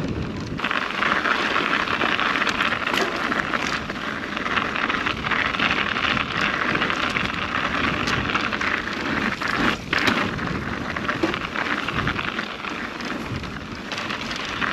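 Mountain bike being ridden on a trail: a steady rush of tyre and wind noise with many small ticks and rattles.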